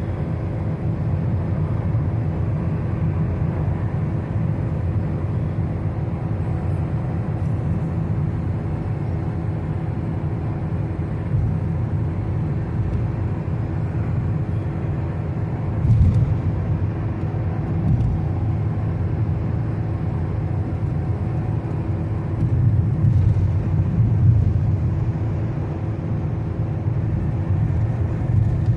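Car driving on a highway: a steady low rumble of road and engine noise, with a couple of brief louder bumps about halfway through.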